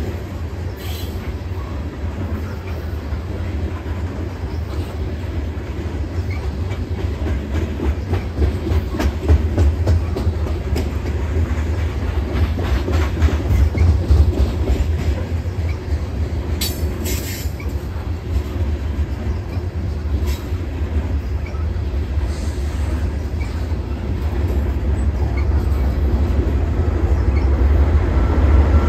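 Covered hopper cars of a freight train rolling over a steel girder railway bridge: a steady low rumble with wheels clicking over the rail and a brief high wheel squeal about seventeen seconds in. The rumble grows louder near the end as the train's locomotives come alongside.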